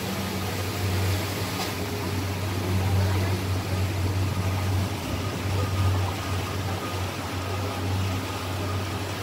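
Cruise boat's engine running steadily, a constant low hum under an even rushing hiss of water and air.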